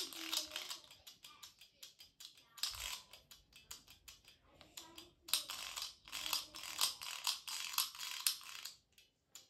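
Fast, dense clicking and crackling of small plastic parts worked by hand, coming in spells: briefly at the start, again around three seconds in, and longest from about five to eight seconds in.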